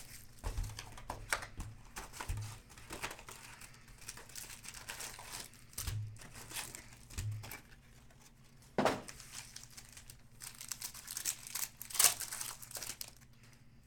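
Wrapping on a sports trading card box and pack crinkling and being torn open by hand: a run of short crackles and rustles, with two louder, sharper rips, one near the middle and one near the end.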